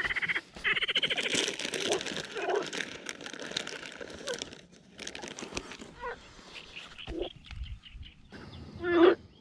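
Rummaging in a fabric tackle bag: cloth rustling and a zipper being drawn for the first few seconds, then quieter handling. A brief, loud vocal sound comes near the end.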